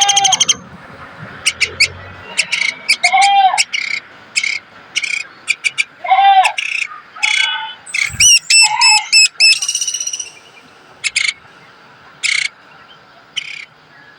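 Woodpecker calls at the nest: a fast run of sharp, high chattering notes at the start, then scattered short, sharp calls with a few lower, arching notes in between.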